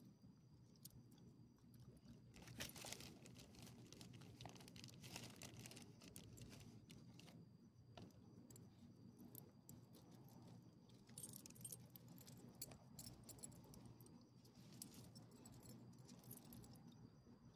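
Faint, scattered clinking of a small dog's metal collar ID tags jangling as it shifts and turns its head.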